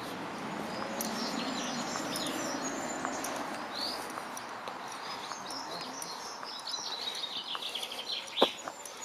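Songbirds chirping and trilling in quick, high phrases, over a steady outdoor hush, with footsteps on the path. A single sharp tap sounds about eight seconds in.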